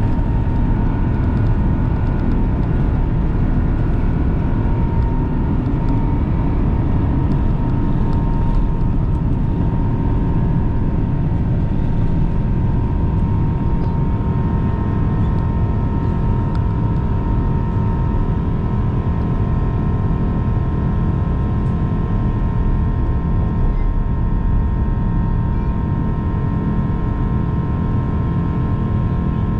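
Airbus A350-1000 cabin noise: a steady, loud rumble of airflow and the Rolls-Royce Trent XWB engines, with a few steady whining tones over it.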